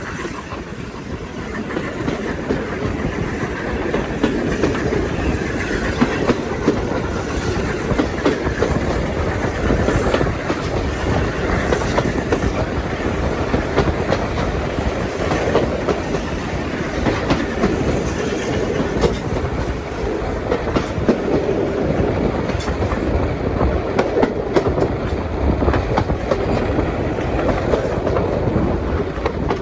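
Steam-hauled railway carriages running along the line, wheels clicking over the rail joints over a steady rumble.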